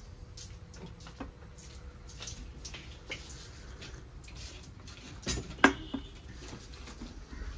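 Scattered light clicks and taps, with one sharper knock that rings briefly a little past halfway.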